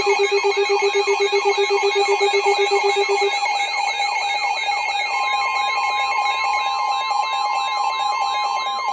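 Several emergency alert tones sounding at once from alert receivers: a fast pulsing beep that stops about three seconds in, rapidly repeating sweeping chirps, a warbling high tone, and a steady single tone that joins about five seconds in.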